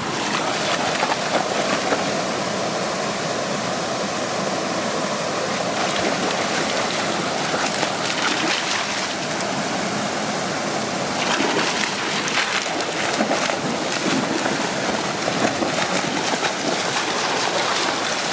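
Steady rush of a rocky stream and small waterfall, with dogs splashing through the shallow water near the end.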